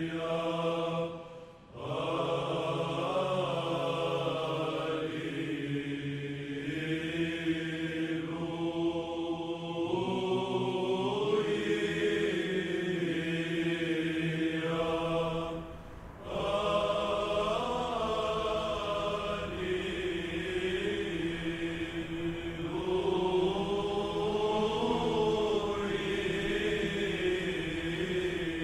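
Religious chant: voices singing a slow melody over a steady, low held drone note, with two short pauses, about a second and a half in and about sixteen seconds in.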